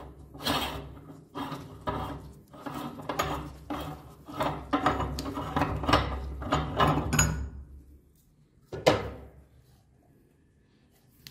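Metal meat grinder packed with powdered soap being taken apart: a run of irregular grating, scraping strokes as its front ring and perforated die plate are worked loose, then one sharp knock about nine seconds in.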